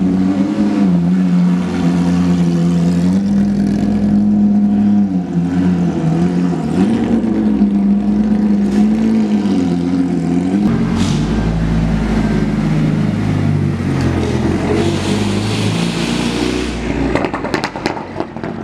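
Race car engines idling in a pit lane, the pitch wavering with light blips of the throttle. About ten seconds in a deeper rumble joins, and near the end there is a brief hiss.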